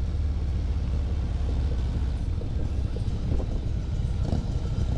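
Harley-Davidson V-twin motorcycle engine running at low speed, a steady low rumble.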